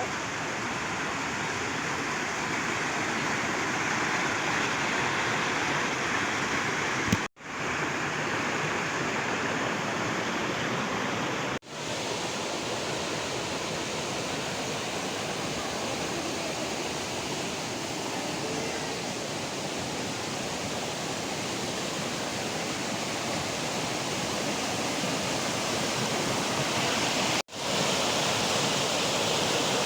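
Waterfall and river water rushing in a steady, even roar, cut off for an instant three times.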